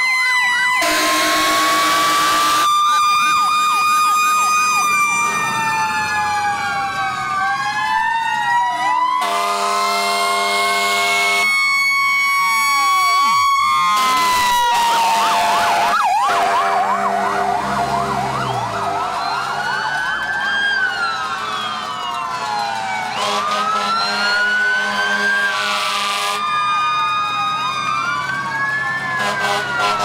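Several fire-truck sirens wailing at once, their rising and falling pitches out of step with one another. Long steady horn blasts break in about a second in, around 9 seconds, around 23 seconds and again near the end.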